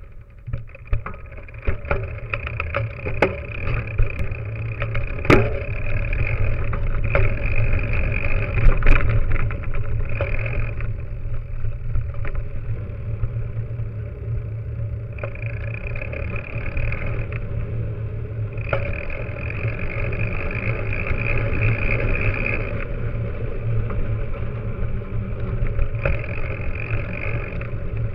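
Mountain bike rolling over pavement, heard from a camera on the front fork: a steady heavy rumble of wind and the knobby tyre on the road, with frequent clicks and knocks from bumps. A higher whirring comes and goes in stretches of a few seconds.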